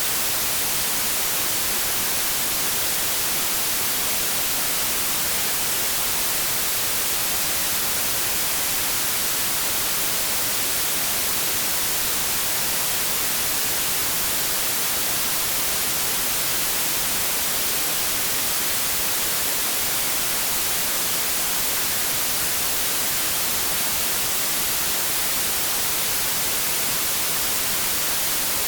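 Steady white noise: an even, unbroken static hiss, brightest in the high end, holding one constant level throughout.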